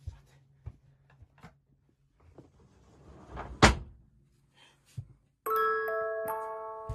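A stick knocking lightly on a broken iPod on a wooden floor, a few soft taps and one sharper knock about three and a half seconds in. From about five and a half seconds, chiming musical notes start one after another and keep ringing together.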